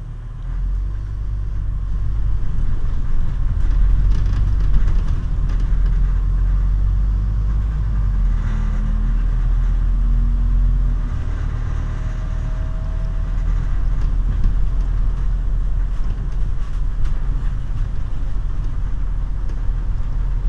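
Scania DC9 five-cylinder diesel of a Scania CN280UB city bus, heard from inside the passenger cabin while driving. The engine and road noise make a deep, steady rumble that builds over the first few seconds, with a faint rising whine twice around the middle.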